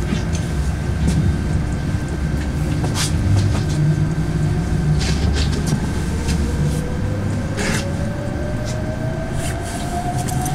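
Cabin of a KAMAZ-6282 electric bus under way: a steady road rumble with scattered small rattles and clicks. From about halfway through, the electric traction motor's whine rises steadily in pitch as the bus picks up speed.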